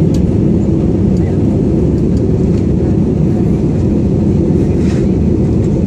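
Jet airliner cabin noise in flight: a steady, even noise heavy in the low end, unchanging throughout.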